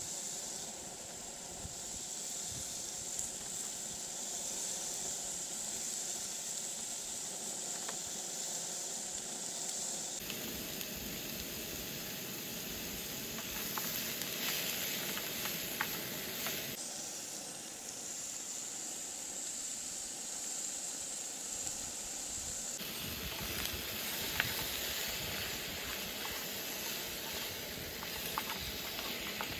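River crabs and vegetable pieces sizzling in a frying pan on a portable butane gas stove, a steady hiss of frying and the burner, with a few light clicks of the utensil against the pan.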